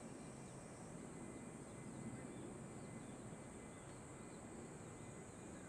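Faint outdoor ambience by a river: a steady wash of noise under a steady high-pitched buzz, with scattered small bird-like chirps through the middle.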